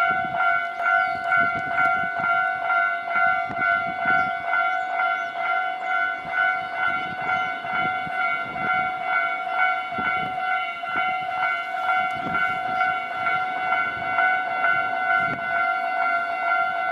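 Japanese railway level-crossing alarm ringing, a repeated bell-like ding at an even rate of about two strikes a second, with a low rumble underneath.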